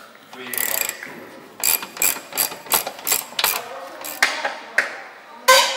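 Hand ratchet clicking as subframe bolts are tightened: a quick run of clicks, about five a second, from about a second and a half in, then a few slower clicks with a loud one near the end.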